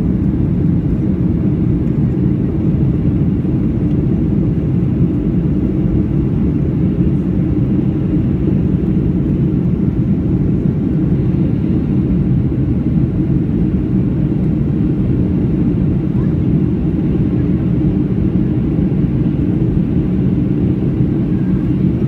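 Steady cabin roar of a Boeing 737 climbing after takeoff: engine and airflow noise heard from inside the passenger cabin, a dull low rumble that holds even throughout.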